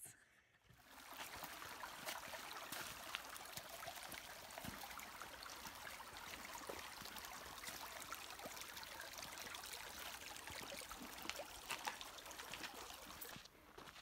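A shallow creek trickling over stones: a steady watery hiss with small bubbling drips, starting about a second in and cutting off just before the end.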